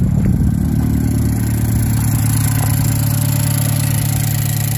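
Chevrolet Cobalt's LNF 2.0-litre turbocharged four-cylinder engine idling steadily, with a newly replaced EVAP purge solenoid fitted.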